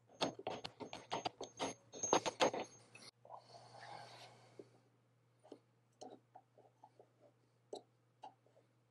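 Steel chisel clicking and tapping against the chipped edge of a hardwood piece in a quick run of light strikes with a faint metallic ring, then a brief scrape and a few scattered small clicks.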